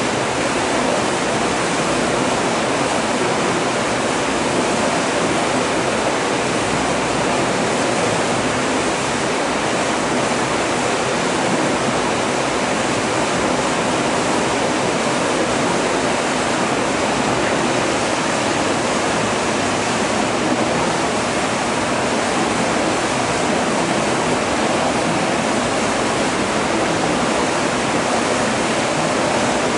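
Water plunging and churning in a filtration unit's weir chamber in a water-treatment filter gallery, a steady, unbroken rush.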